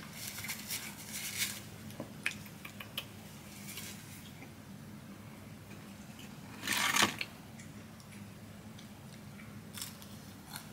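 Fast-food paper packaging rustling and crinkling as it is handled, with a few soft clicks. A louder rustle of the cardboard fry carton comes as a hand reaches into it, about seven seconds in.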